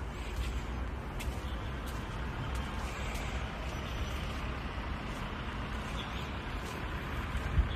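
Excavator's diesel engine running steadily, a low rumble with a few faint clicks over it.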